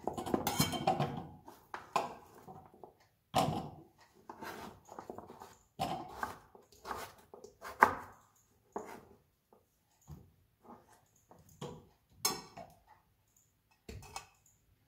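Chef's knife chopping pumpkin into cubes on a plastic cutting board: irregular knocks of the blade meeting the board, mixed with the clatter of pumpkin pieces being scooped up and dropped into a glass bowl, the longest clatter in the first second.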